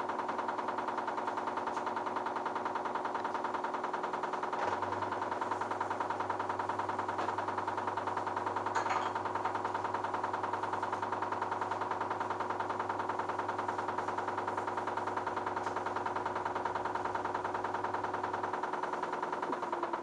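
LG direct-drive washing machine drum spinning at a steady speed during the intermediate spin between wash and rinse, with a steady motor whine and an even, fast whirring pulse. A low hum joins about five seconds in and stops near the end, and the whine shifts in pitch right at the close as the speed changes.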